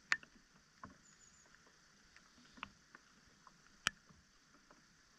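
Faint, scattered small clicks and little splashes of tackle and water while a foul-hooked fish is played in on a pole; the sharpest click comes just under four seconds in.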